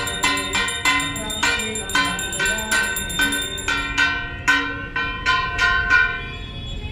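Bells chiming in a quick run of struck, ringing notes at several pitches, about three a second, stopping about six seconds in.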